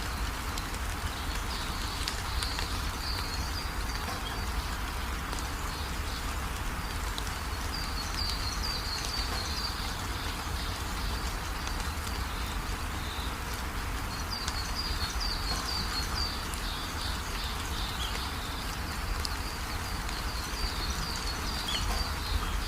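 Steady rainfall, an even hiss, with runs of quick high chirping calls coming and going over it a few times.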